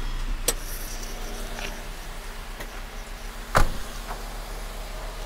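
Car trunk lid being handled: a light click about half a second in, then a sharper latch click or knock about three and a half seconds in.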